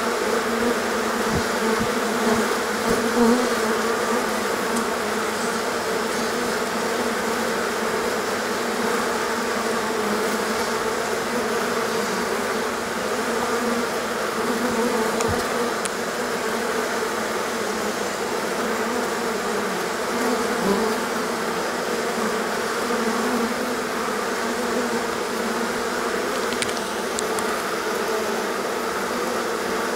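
Steady buzz of a great many honeybees crowding and flying at a hive entrance, a colony in the midst of swarming.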